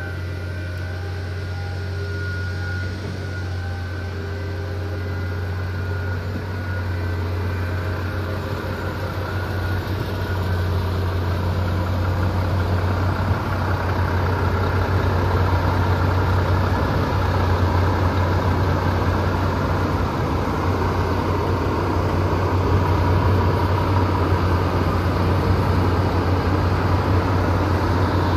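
Heavy truck's diesel engine running steadily with a low drone, growing gradually louder.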